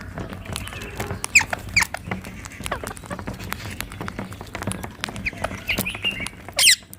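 Rose-ringed parakeets calling: a run of short, sharp, shrill calls, many falling in pitch, with a loud burst of rapid calls near the end.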